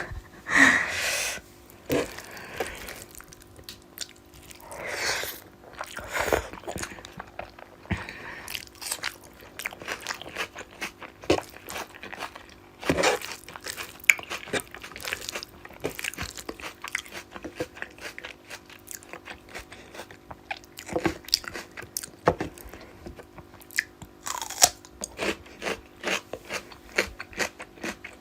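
Close-up eating sounds of a meal of rice and rohu fish curry with fried sides: steady chewing and biting with crunching and many small wet mouth clicks, and a few louder bursts.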